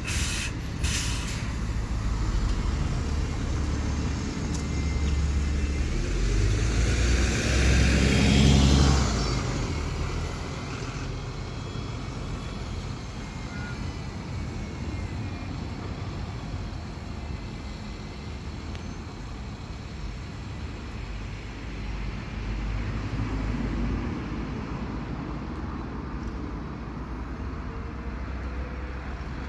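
Bus engine running, growing louder to a peak about eight or nine seconds in with a rush of noise as it passes close, then fading back to a steady low rumble, with a smaller swell later.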